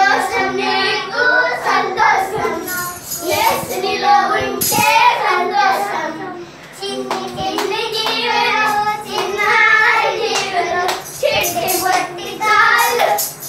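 A group of children singing together, with sharp hand claps now and then.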